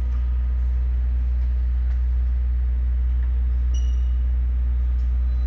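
Drive motor and gearbox of a Shaffer double sigma mixer running the sigma blades slowly in reverse on jog, a steady low hum.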